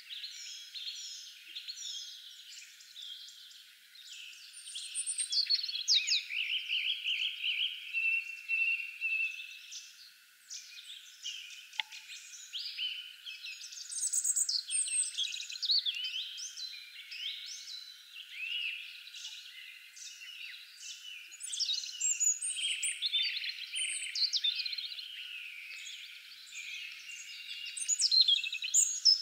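Several songbirds chirping and singing at once: a continuous chorus of overlapping short chirps, whistles and trills.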